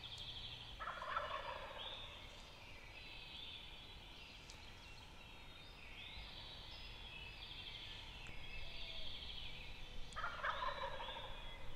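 Wild turkey gobblers gobbling twice, about a second in and again near the end, over steady high bird chirping.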